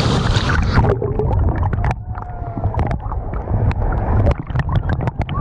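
Waterfall water pouring straight onto the microphone from beneath the fall. About a second in, the bright roar turns muffled: a heavy low rumble with many sharp clicks and gurgling, gliding squeals.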